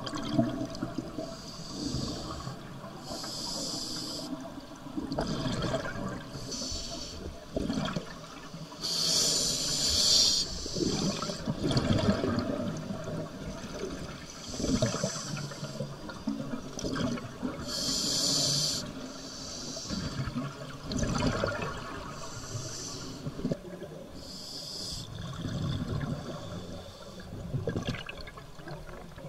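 Scuba diver breathing through a regulator underwater: a hissing inhalation every three to four seconds, each followed by the gurgling rumble of exhaled bubbles.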